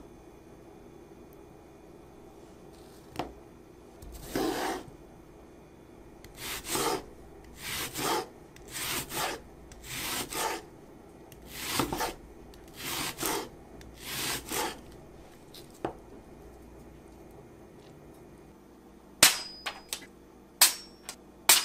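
A chef's knife slicing through an onion onto a wooden cutting board, about eight rasping strokes roughly a second apart. Near the end come a few sharp, crisp snaps as the knife slices through a sheet of paper to test its edge.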